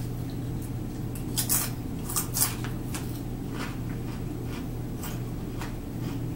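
Close-up crunching of a Ruffles sour cream and onion potato chip being bitten and chewed, with the loudest crunches about a second and a half and two and a half seconds in, then softer crunching as the chewing goes on.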